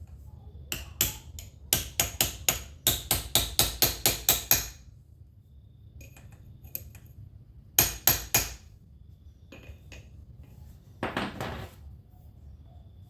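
Hammer blows on metal transaxle parts: a quick run of about fifteen sharp, ringing strikes, then three more a few seconds later, and a short rustling noise near the end.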